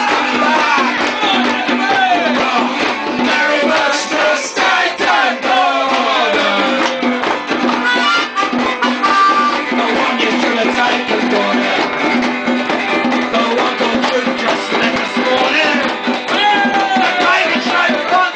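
Live acoustic band: slide guitar on a steel-bodied resonator guitar with gliding notes, a hand drum played with the hands, and a man singing into a microphone.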